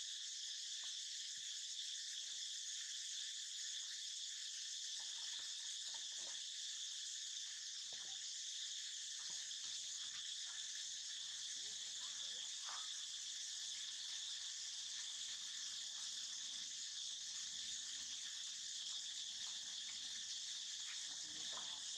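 Steady, high-pitched insect chorus droning on without a break, with a few faint short taps and rustles here and there.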